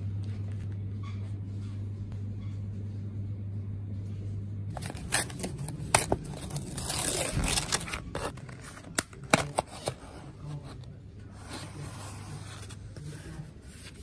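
A steady low hum, then from about five seconds in paper rustling and scraping with several sharp clicks as a paper sleeve is slid off a molded-pulp takeaway box and its lid is pulled open.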